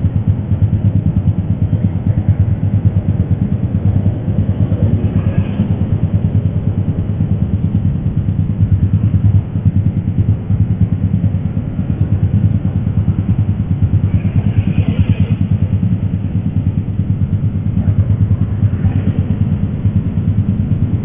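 Motorcycle engine idling steadily while stopped at a traffic light, heard through a helmet-mounted intercom mic, with other vehicles passing a few times.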